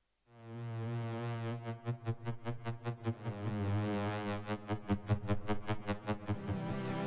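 Yamaha Reface DX FM synthesizer patch: a low sustained note with a bright, rich tone fades in after a moment of silence, then takes on a fast rhythmic pulsing of about five beats a second.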